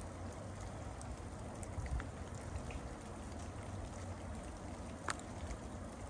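Steady rain falling, a soft even hiss, over a low rumble of wind. Two sharp drop ticks stand out, one about two seconds in and a louder one about five seconds in.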